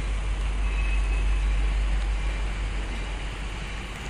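Freight train rolling steadily across a road crossing down the street: a continuous low rumble with a noisy wash of wheel and road sound over it.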